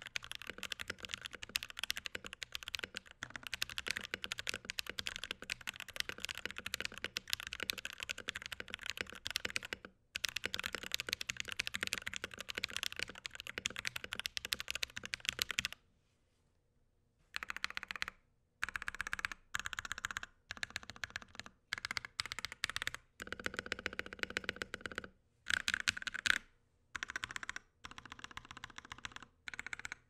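Typing on an NK65 Milkshake Edition mechanical keyboard with filmed, lubed NovelKeys Silk Yellow linear switches and modded stabilizers, set straight on a wooden desk with no deskmat: a fast continuous run of keystrokes, a pause about sixteen seconds in, then separate short groups of presses on the modifier keys. The uploader still finds the board's sound a little hollow.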